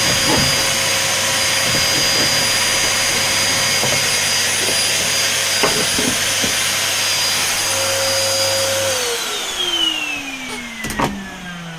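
Vacuum cleaner running steadily with a high whine, then switched off about nine seconds in, its whine gliding down as the motor winds down. A few light knocks along the way and a sharper knock near the end.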